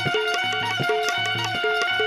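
Traditional Indian folk instrumental music: a steady drum beat under a long held melody note.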